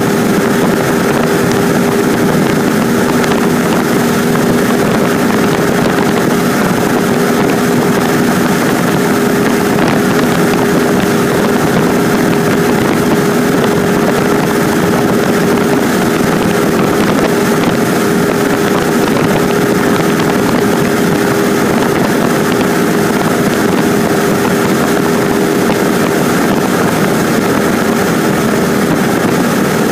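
Cessna 150's Continental O-200 four-cylinder engine and propeller running steadily in flight, heard inside the cabin as a constant drone with a steady hum over the rush of air.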